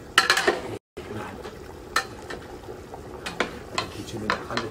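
Metal cooking pots and utensils clinking and knocking now and then over a steady low hiss of cooking. There is a short gap of dead silence just before one second in.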